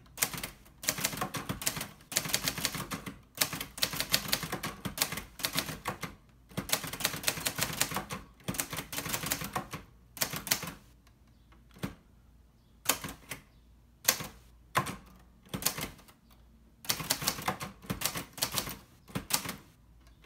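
1963 Hermes 3000 manual typewriter being typed on: quick runs of typebar strikes, mixing shifted capitals and lowercase letters, in bursts with short pauses between.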